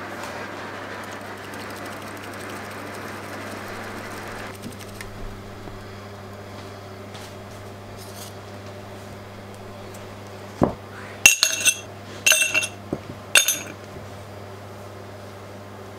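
Bamboo matcha whisk (chasen) whisking matcha in a ceramic bowl, a steady fast brushing hiss that stops suddenly a few seconds in. Later a knock, then three ringing clinks about a second apart as ice cubes go into a tall glass.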